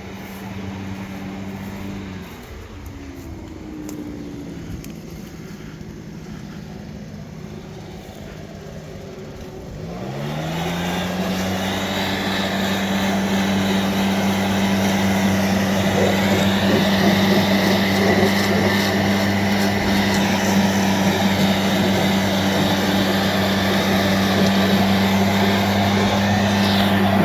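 A pressure washer's gas engine running steadily. About ten seconds in, its pitch rises quickly and it holds at a higher, louder steady speed with a hiss over it, the engine going up to full throttle under load.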